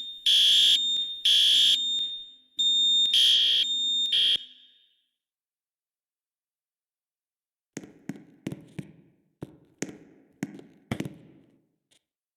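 Building fire alarm horns blaring in pulses, grouped in threes with short pauses, over a steady high-pitched tone; they cut off about four and a half seconds in. After a silent gap, a run of about eight sharp, quieter clicks follows.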